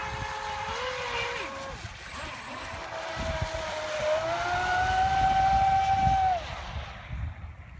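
Brushless electric motors of radio-controlled speedboats whining. One boat passes close, its whine rising a little in pitch and growing louder, then cutting off abruptly about six and a half seconds in.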